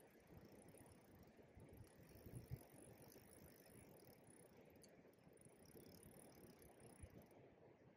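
Near silence: faint steady outdoor hiss, with a few soft low thumps about two and a half seconds in and again near the end.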